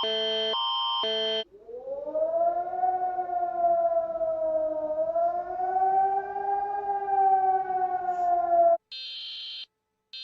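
Emergency-alert alarm sounds. A brief two-tone alternating alarm cuts to a siren wail that rises, holds with a slow waver for about seven seconds, then cuts off abruptly. A short high-pitched beep follows near the end.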